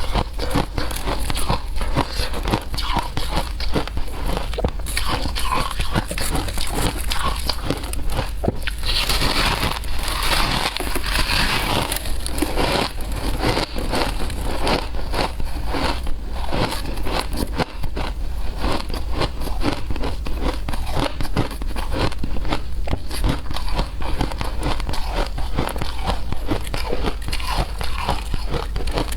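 Shaved ice being chewed and crunched close to the microphone: a steady run of dense, irregular crackling crunches, busiest about nine to thirteen seconds in.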